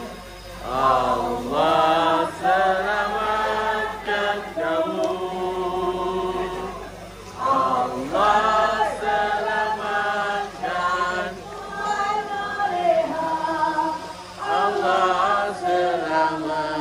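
Voices singing together in unison, a slow unaccompanied melody with long held notes that slide between pitches and short breaths every second or two.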